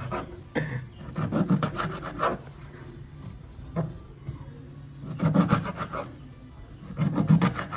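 Kitchen knife sawing through pieces of fish onto a cutting board: a few bursts of quick rasping strokes, with short pauses between them.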